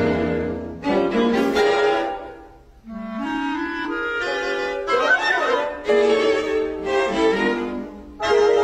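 Orchestral music led by bowed strings, played in phrases, with a brief drop in loudness about three seconds in.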